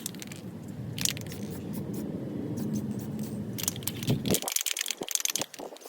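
Rust-Oleum 2X spray paint can being shaken, its mixing ball rattling in sharp irregular clicks over a low steady rumble that stops about four seconds in.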